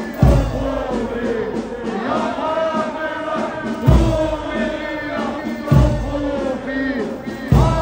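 A Muharram mourning lament chanted by a male voice through a loudspeaker sound system. A heavy low thump falls four times, about every two seconds, marking the beat of the lament.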